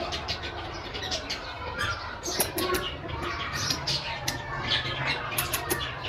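Rose-ringed (green ring-necked) parakeet chicks begging while being hand-fed: a rapid, uneven run of short squeaks and clicks.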